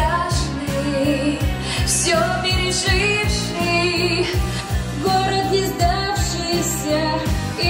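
Pop song with a steady beat, a girl's voice singing the melody over the backing track.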